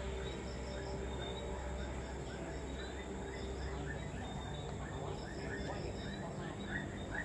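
Outdoor garden ambience with a short chirping call repeated two to three times a second, getting louder near the end, over a low steady rumble.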